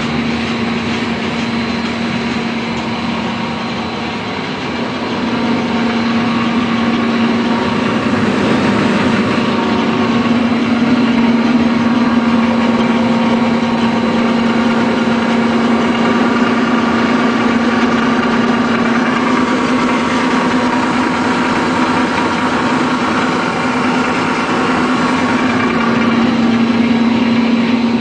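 Breadcrumb extrusion production line running: motors and machinery give a loud, steady mechanical hum with a constant drone, growing a little louder about five seconds in.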